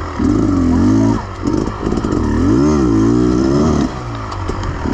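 Beta Xtrainer 300 two-stroke single-cylinder enduro motorcycle engine revving up and down with the throttle, its pitch rising and falling several times, then easing off for the last second.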